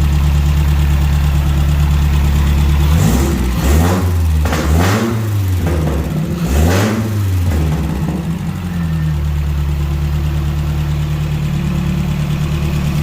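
Toyota 22RE 2.4-litre four-cylinder engine converted to run on propane, idling steadily. Between about three and eight seconds in it is revved up and let back down a few times, then returns to idle.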